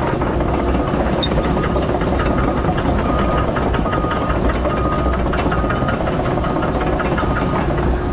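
Hyundai HX140AL excavator's diesel engine running steadily, a low, even hum. A short high beep repeats about twice a second over it.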